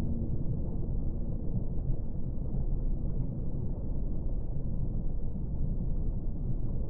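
Steady, muffled underwater ambience: a low rumbling wash of water as heard below the surface, with no higher sounds in it.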